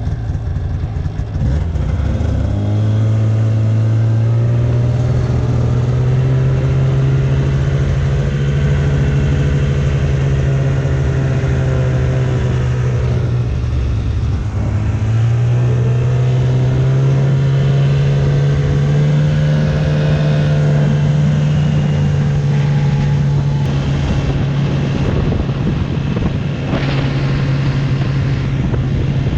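Arctic Cat Bearcat 570 XTE snowmobile's two-stroke engine running under way. The revs climb about two seconds in, drop off briefly near the middle, then climb again and hold steady.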